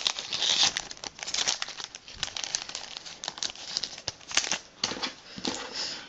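Pokémon card booster pack foil wrappers and trading cards being handled: crinkling and rustling with many small irregular snaps.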